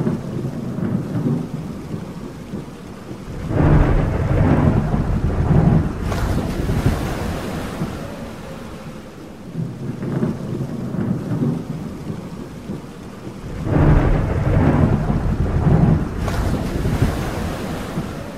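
Thunderstorm ambience: two long rolls of thunder about ten seconds apart, heard over steady rain.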